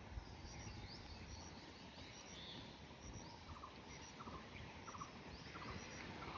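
Faint outdoor ambience between trains: a low steady rumble with small birds chirping again and again, and insects.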